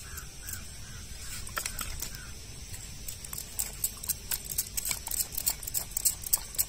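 Mesh fish trap being lifted and shaken with a fish caught in it: irregular clicks, taps and rustles of the net and its frame, coming thicker in the second half.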